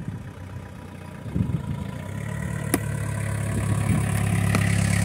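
Old Volkswagen Gol hatchback's engine getting louder as the car drives up and stops close by, then idling steadily.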